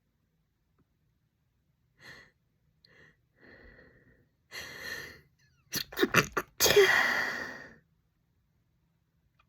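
A woman's sneeze build-up: a few short catching breaths that grow louder, a deeper gasping inhale, a quick run of sharp catches, then one long loud sneeze about seven seconds in.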